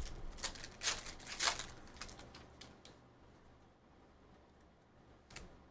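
Trading cards and foil pack wrappers being handled: a quick series of short rustling scrapes in the first three seconds, then one more near the end.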